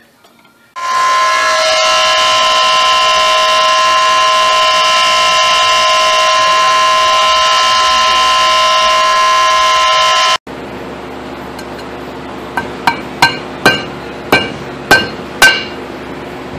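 Flywheel grinder resurfacing a Mazda 626 flywheel: a loud, steady multi-tone whine that starts about a second in and cuts off sharply. After it, about seven sharp hammer taps ring off the steel flywheel on the bench.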